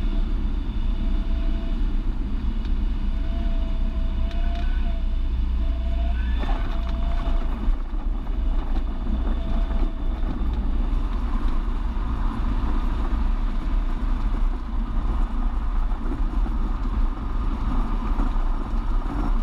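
Light single-engine propeller plane's piston engine at takeoff power, a steady loud drone heard from inside the cockpit during the takeoff roll.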